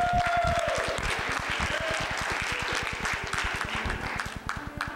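Congregation applauding, a dense patter of many hands clapping that thins out near the end.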